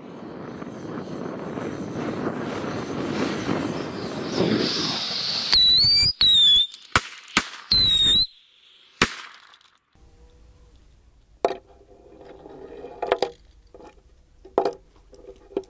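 A gas torch hisses for about five seconds as it lights the fuses. Then small Whistling Moon Traveller firework rockets strapped to toy die-cast cars go off: several loud, shrill whistles that bend in pitch, with a few sharp cracks, over about three seconds. After that come light knocks of the toy cars being handled on a wooden board.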